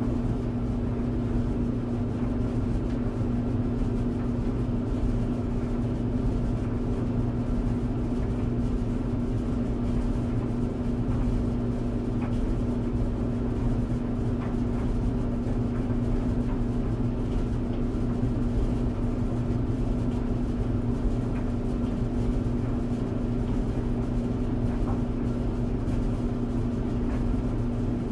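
Tumble dryer running: a steady motor hum with a strong low tone and the even rush of the turning drum, with faint light ticks here and there.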